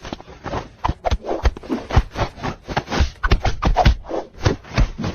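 A rapid, irregular run of scratching strokes, several to the second.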